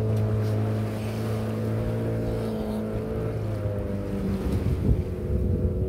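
Small fishing boat's engine running steadily, its pitch wavering slightly, with a low thump about five seconds in.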